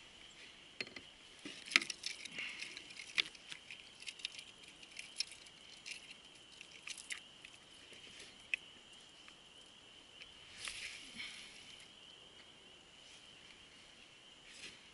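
Kayak paddle dipping and dripping, with water patter, splashes and small knocks against the hull, over a steady high-pitched chorus in the background.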